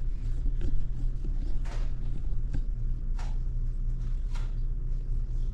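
Steady low hum with about five brief soft knocks and rustles scattered through it.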